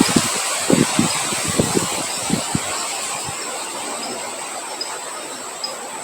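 Rain and wind: a steady hiss of rain with low buffeting gusts that die away over the first half, above a thin, steady high tone.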